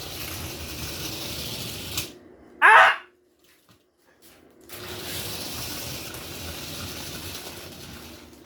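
Steady whirring hiss of a remote-control cobra toy's motor, cutting out abruptly about two seconds in and starting again a couple of seconds later. A man shouts 'Ah!' in the gap, the loudest sound.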